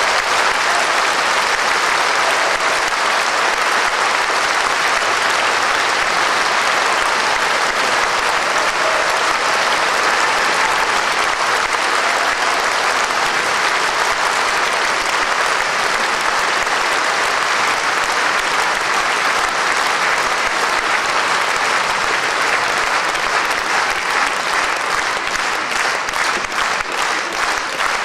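Concert hall audience applauding steadily after a sung piece, the applause thinning into separate claps near the end.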